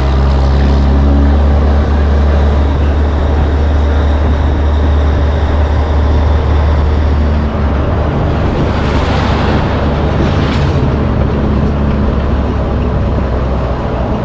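Caterpillar 3406B diesel engine of a Peterbilt cabover truck pulling under load, a steady deep drone from its twin exhaust stacks heard just behind the cab. A swell of rushing noise rises over it about nine seconds in.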